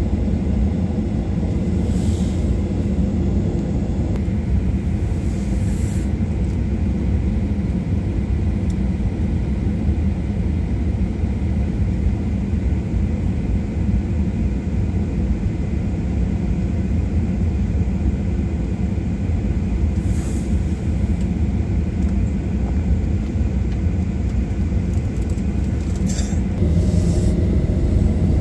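Jet airliner cabin noise on the ground before take-off: a steady low engine rumble with a faint steady whine, a few light clicks, and near the end a rising whine as the level climbs, the engines starting to spool up.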